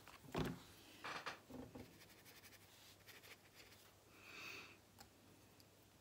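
Nearly quiet handling of face-painting brushes and palettes: a soft knock about half a second in, then faint rustling.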